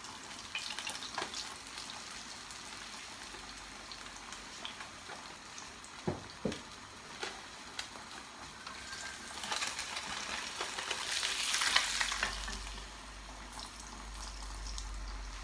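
Panga fish fillets frying in oil in a nonstick pan: a steady sizzle that swells louder for a few seconds past the middle, with a few light knocks of a spatula against the pan as the fillets are lifted out.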